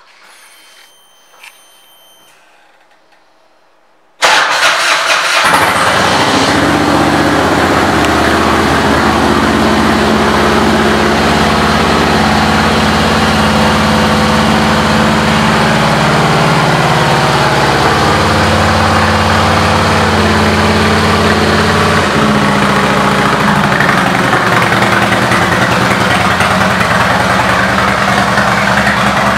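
The Harley-Davidson Dyna Low Rider's Twin Cam 88 V-twin, fitted with an aftermarket air cleaner and exhaust, starts suddenly about four seconds in. It then runs on at a steady, loud idle.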